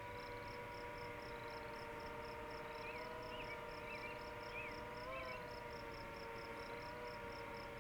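Distant DJI FPV drone's motors giving a steady whine that rises briefly in pitch about five seconds in, as the throttle is pushed. Crickets pulse about four times a second, and a bird chirps a few times.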